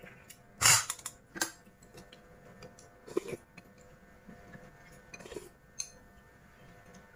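A person eating: four short, noisy slurping and sucking sounds as chicken is gnawed off the bone and rice porridge is sipped from a small bowl. The loudest comes under a second in. Light clicks of chopsticks against the bowl come between them.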